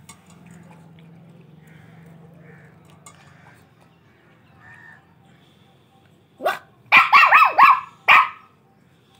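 A puppy barking: a quick run of about six high-pitched barks over roughly two seconds, starting about six and a half seconds in, after a quiet stretch with a low steady hum.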